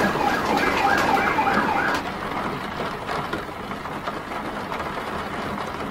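Emergency vehicle siren in a fast yelp, a tone rising and falling rapidly, cutting off about two seconds in. Under it runs a steady hiss of rain and city traffic.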